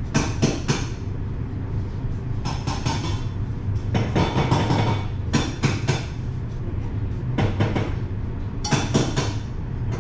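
Lemon being zested on a fine hand grater: about six bursts of short rasping scrapes, over a steady low hum.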